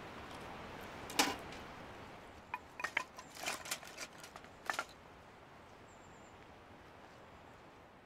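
Firewood knocking and clacking: one sharp strike about a second in, then a run of lighter clacks between about two and a half and five seconds, over a steady background hiss.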